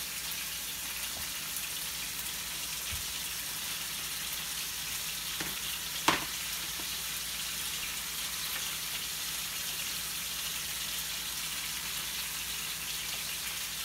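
Chicken and steak pieces frying in a skillet, a steady sizzle, with a single sharp clack about six seconds in.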